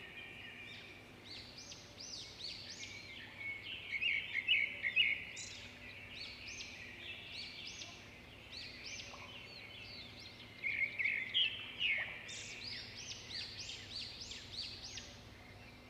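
Birds chirping: many short, quick notes overlapping one another, with louder bursts about four seconds in and again around eleven seconds.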